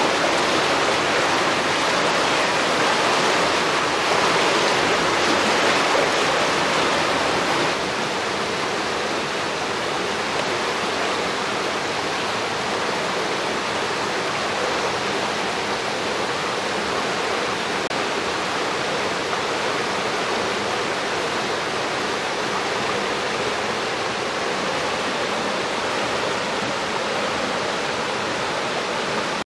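Water of Greer Spring, a large Missouri spring, rushing and churning as it pours out of a cave mouth: a steady rush of water, a little louder for the first eight seconds or so.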